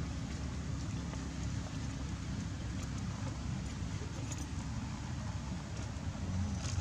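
Steady low rumble with an even hiss of outdoor background noise, and a few faint clicks.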